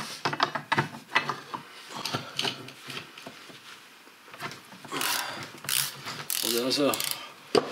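Socket ratchet wrench clicking in short runs, with metal clinks, as it works a 22 mm nut on a portal wheel-reduction hub.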